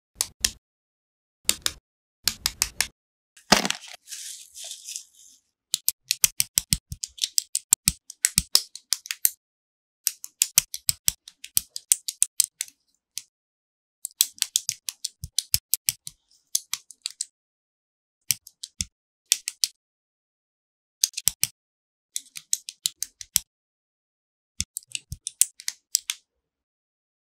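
LEGO plastic bricks clicking and snapping together as pieces are pressed onto a model car, in quick clusters of sharp clicks with silent gaps between them. A short hiss-like noise comes about four seconds in.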